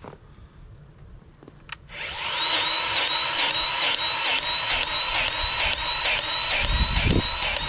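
Battery-powered grease gun running, its motor pumping in a steady rhythm of about two strokes a second as it forces grease into a pin's grease nipple. It starts about two seconds in.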